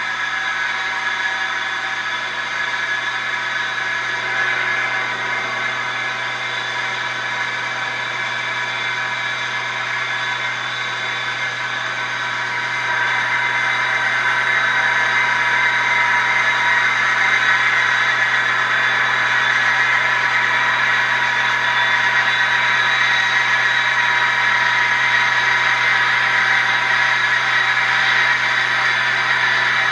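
CNC wood-turning lathe running: a steady machine whine with a hiss, growing louder a little under halfway through.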